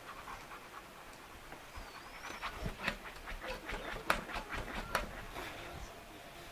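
A dog panting in quick short breaths during rough play, about three or four a second, with a couple of sharper sounds among them.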